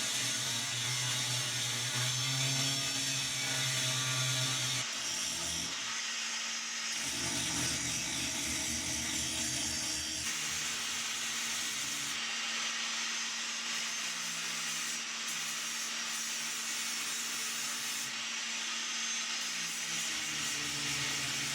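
A power tool grinding down lumpy weld beads on an aluminum toolbox: a steady grinding hiss with a low hum, changing abruptly several times.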